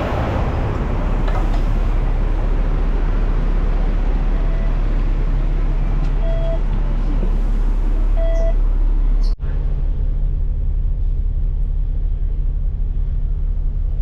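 Steady rumble of road traffic or a moving vehicle, with a few short electronic beeps in the middle. The sound drops out abruptly about two-thirds of the way through, then the rumble carries on.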